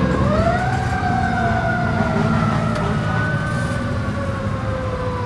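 Emergency vehicle siren wailing: one tone slowly falling, sweeping back up about half a second in, then slowly falling again, over the steady low rumble of city traffic.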